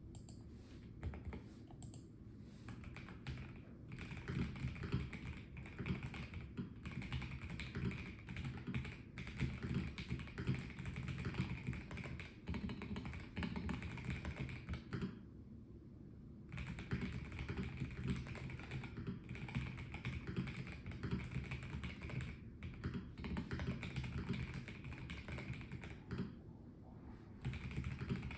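Typing on a Melgeek Mojo84 mechanical keyboard with a plastic case: a quick, uneven run of key clacks, with short pauses about halfway through and near the end.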